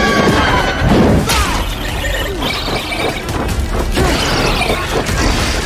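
Action-scene film soundtrack: dramatic music mixed with loud crashing and smashing effects, with short sounds that swoop up and down in pitch throughout.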